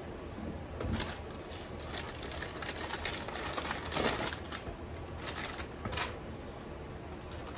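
Intermittent rustling and handling noises of hands working with food and a bowl at a kitchen sink. There are several short bursts, the longest about two and a half seconds in.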